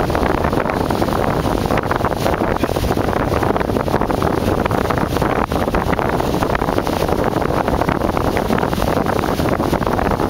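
Steady heavy wind buffeting the microphone, over the rush of water along a sailboat's hull under way in choppy water.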